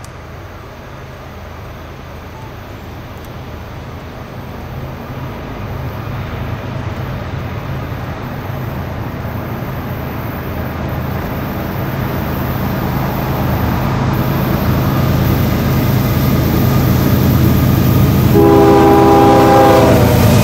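Two CSX ES40DC diesel-electric locomotives at the head of a freight train approaching, their engines' low, steady hum growing louder. The lead locomotive's air horn sounds near the end, for about two seconds.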